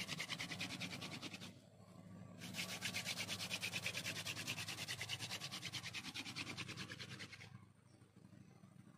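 Hand-drill fire spindle twirled fast between the palms, its tip grinding into a wooden hearth board in a rapid, even rasping rhythm as it works up hot friction dust. It pauses for about a second, starts again, and stops a little before the end.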